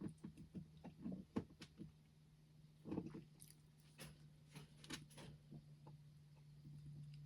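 Faint scattered clicks and light taps from makeup being handled, with a small cluster about three seconds in and a few sharper ticks around four to five seconds, over a steady low hum.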